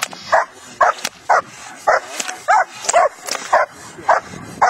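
A young shepherd dog barking repeatedly, about two barks a second, while lunging on a leash at a training helper during protection defence work.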